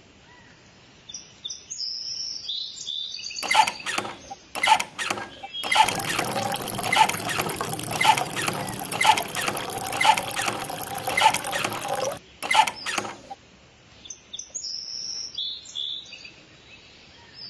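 Water rushing from the spout of a miniature hand pump into a small metal bucket, surging about once a second with each stroke of the lever. Birds chirp before and after the pumping.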